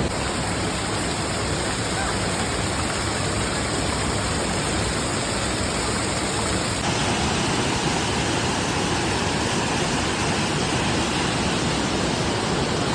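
Steady roar of a waterfall's falling and rushing water, its tone shifting slightly about seven seconds in.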